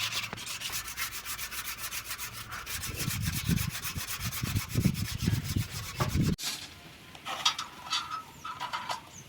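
Sanding: rapid, repeated scraping strokes that stop abruptly about six seconds in. Scattered light clicks and knocks follow.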